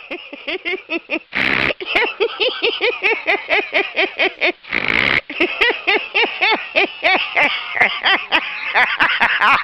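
A person laughing hard: a long run of quick, high-pitched giggles, about three or four a second, broken by gasping in-breaths about a second and a half in and again about five seconds in.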